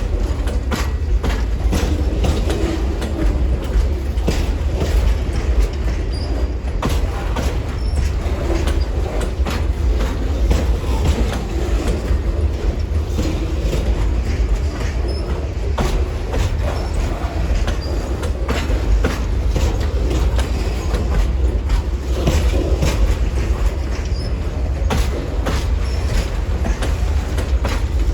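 Amtrak Auto Train cars rolling past: a steady heavy rumble with wheels clacking over rail joints and an occasional faint wheel squeal.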